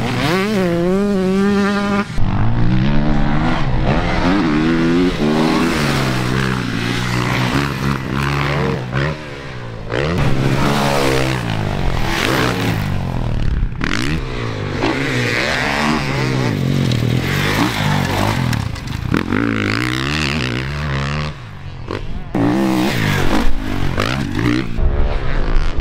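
Dirt bike engines revving up and down, the pitch rising and falling over and over as the riders work the throttle. The sound switches abruptly a few times from one bike to another.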